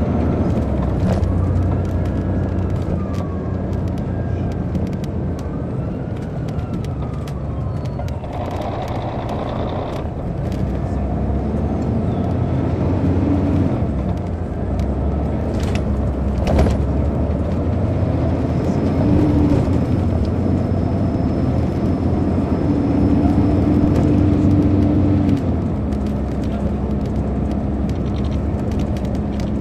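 Interior of a 2002 MCI D4000 coach heard from the rear seats: its Detroit Diesel Series 60 inline-six diesel running under way through the Allison B500 automatic transmission, a steady drone whose pitch steps up and down several times as the bus changes speed and gear. A single sharp knock from the bus body comes about sixteen seconds in.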